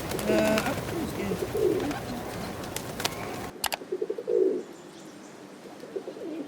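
Pigeons cooing, several low coos in turn, with a few sharp clicks; the background noise drops away about three and a half seconds in.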